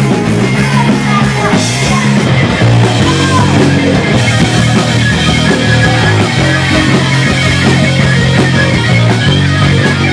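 Punk rock band playing loud, with distorted guitar, bass and drums, in a live recording of the gig.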